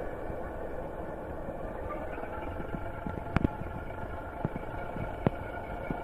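ESU LokSound sound decoder in an O gauge Class 08 shunter model playing the Class 08 diesel engine's steady running sound through its small speaker as the model moves slowly along the track. A few sharp clicks sound over it, the strongest about three and a half and five seconds in.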